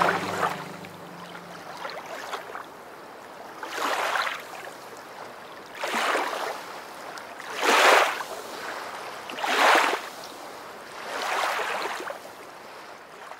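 Sea waves washing in, a swell of surf noise about every two seconds that rises and falls away, the strongest near the middle. The last low notes of the music die away in the first second or so.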